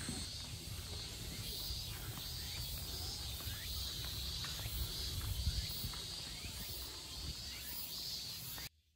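Summer insects trilling in repeating pulses, about one swell a second, with short high chirps scattered through and a low rumble underneath; it all cuts off abruptly near the end.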